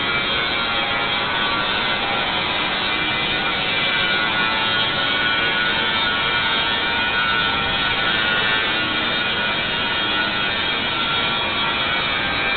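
CNC plasma torch cutting steel plate: a steady, even hiss with a faint high whine that holds unchanged throughout.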